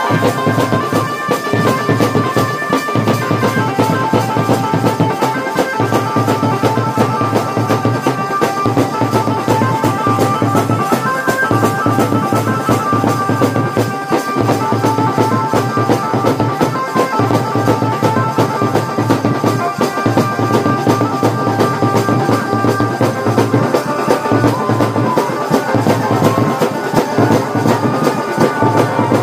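Music with a steady drum beat and a melody line over it, playing throughout.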